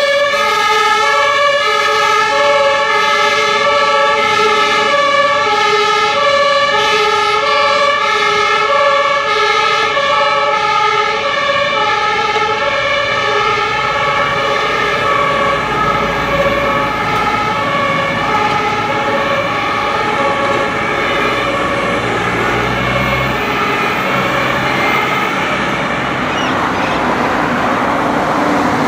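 German two-tone fire engine sirens (Martinshorn) from several fire engines at once, alternating high and low about every half second. They fade out over the second half, giving way to street traffic noise near the end.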